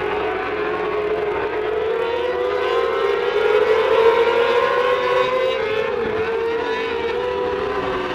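A pack of mini sprint cars racing on a dirt oval, several engines at high revs overlapping, their pitches wavering up and down as the cars go through the turns. The sound swells to its loudest about four seconds in as the pack passes closest.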